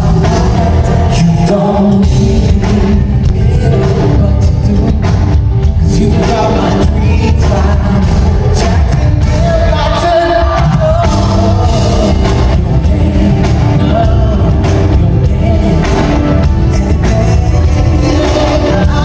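Live R&B concert: a male singer singing into a microphone over a full band with heavy bass, heard loud from among the audience.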